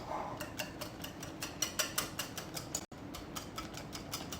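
Potato masher pressing softened strawberries in a pot on low heat, its head clicking against the bottom of the pan in a quick, uneven rhythm of about three or four taps a second as the berries are crushed.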